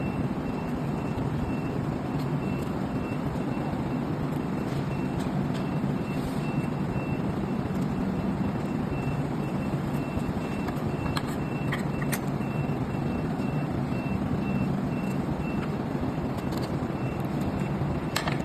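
Steady low rumble of background machinery with a faint, high beep repeating about twice a second through most of it, and a few light clicks from handling scooter parts.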